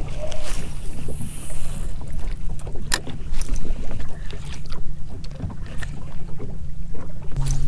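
Wind rushing over the microphone on a small boat in choppy water, with water slapping the hull and a few sharp clicks. A low steady hum runs underneath and grows louder near the end.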